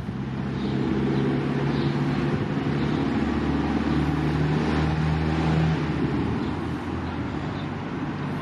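A motor engine runs steadily with a low hum. It grows over the first second and fades after about six seconds.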